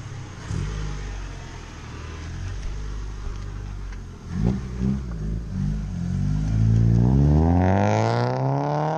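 Nissan Bluebird U12 sedan engine pulling away at low revs, with a couple of knocks around the middle, then revving up with a steadily rising pitch over the last few seconds as the car accelerates away down the street.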